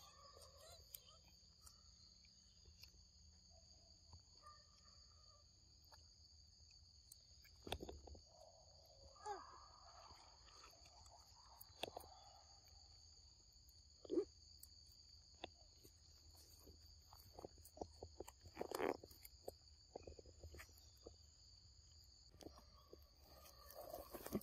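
Faint forest ambience: a steady, high-pitched insect drone, with scattered soft clicks and a few brief louder rustles and knocks.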